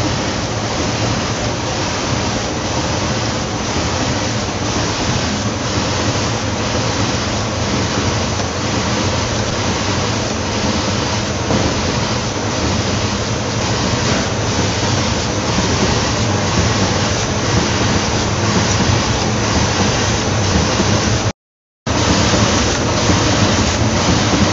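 Bizzozero Mica TC 1600 slitter-scorer running as corrugated cardboard sheets feed through its slitting and scoring wheels: a loud, steady rushing machine noise with a faint regular beat. The sound cuts out for about half a second near the end.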